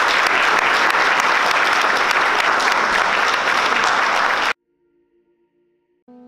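Audience applauding with dense, steady clapping that cuts off abruptly about four and a half seconds in. After a short near-silence, music with sustained notes starts right at the end.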